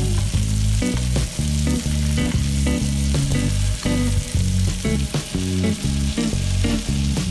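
Butter foaming and sizzling around a ribeye in a frying pan, with a spoon scraping the pan as the steak is basted. Background music with steady low notes plays along.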